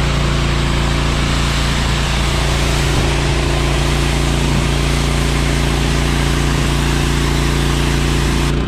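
Stihl RB800 gas pressure washer, its Kohler engine running steadily under load beneath the loud hiss of the water jet spraying. The spray stops abruptly right at the end.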